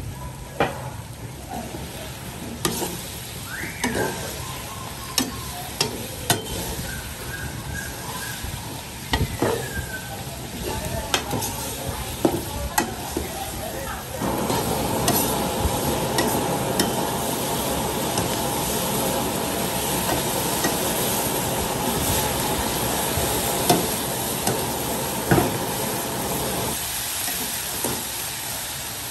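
Crab pieces, scallions and chili sizzling in a hot wok while a ladle stirs and tosses them, with scattered clicks and knocks. The sizzle gets louder about halfway through, once the ladle starts turning the food, and two sharp knocks come near the end.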